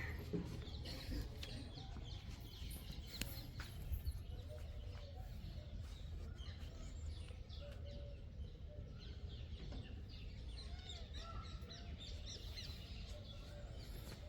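Faint bird chirping, many short calls, over a low steady rumble.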